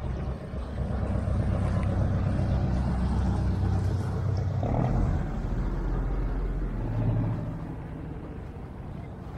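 A small boat's motor running steadily while the boat is under way, a low, even engine sound that drops in level about seven and a half seconds in.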